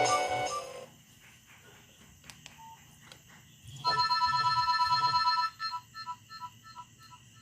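Ringtones playing from a Nokia 6085 mobile phone's speaker. A polyphonic ringtone tune fades out in the first second. After a quiet gap with a few faint clicks, another electronic ringtone starts about four seconds in: a steady tone held for about a second and a half, then broken into a quick run of short beeps that fade away.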